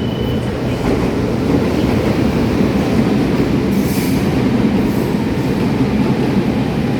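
Taiwan Railway Tze-Chiang limited express train pulling into a station: a steady rumble of the train's wheels on the rails, with a brief high hiss about four seconds in.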